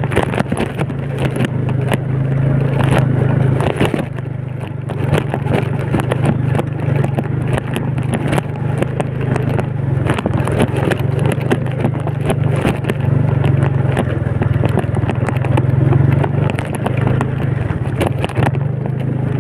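Old Yamaha Vega underbone motorcycle's single-cylinder four-stroke engine running steadily under way, with frequent short clatters and knocks from riding over a rough road.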